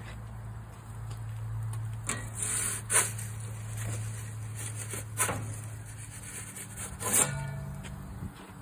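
Metal pizza peel scraping over the cordierite oven floor of a wood-fired barrel pizza oven as the pizza is shifted, in a few short rasping scrapes about two seconds apart, over a steady low hum.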